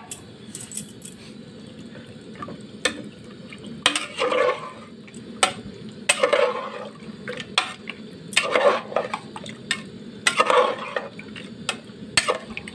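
Metal ladle stirring mutton, spices and water in an aluminium pressure cooker: wet swishes about every two seconds, with sharp clinks and scrapes of the ladle against the pot.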